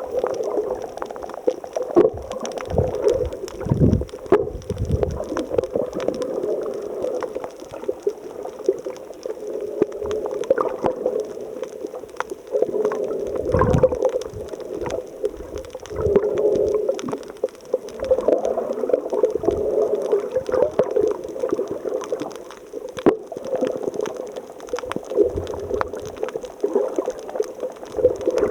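Water gurgling and churning steadily, swelling and dipping unevenly, with a few low thumps.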